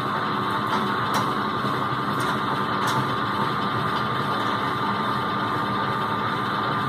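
Epicyclic gear train test rig running under its electric motor at about 680 rpm: a steady mechanical hum with a thin whine from the gears and shafts, and a faint tick now and then. Brake load is being applied slowly to the holding drum, and the speed sags a little.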